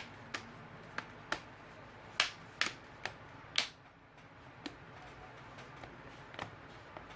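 Plastic screen bezel of an HP Stream 11 laptop being pressed down, its clips snapping into place one after another as a series of sharp plastic clicks, most of them in the first four seconds and a few more later.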